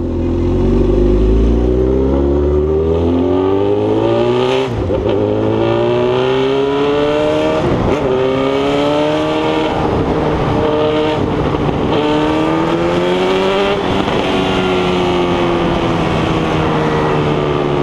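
Honda CB1000R's inline-four engine and exhaust accelerating hard, its pitch climbing and dropping back at gear changes about 5 and 8 seconds in, then falling slowly over the last few seconds as the bike eases off.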